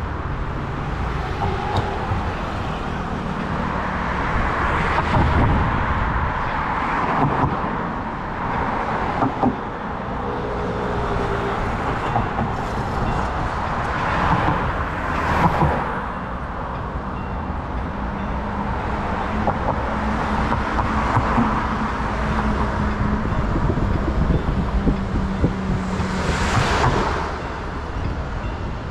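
City street traffic heard from a bicycle: cars and other vehicles passing, their noise swelling and fading every few seconds. A steady low hum runs through much of the second half, and a louder pass comes near the end.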